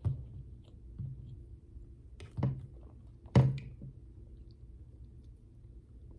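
A person chewing food close to the microphone, with sharp mouth noises at the start, about a second in, and twice more a little later, the last the loudest.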